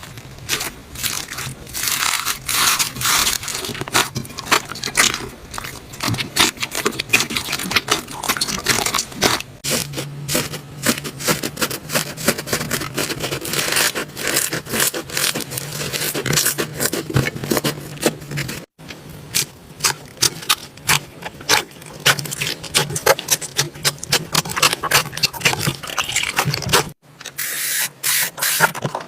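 Hands squeezing and working slime: a dense, irregular run of small clicks, pops and crackles. The sound breaks off abruptly twice as one clip cuts to the next.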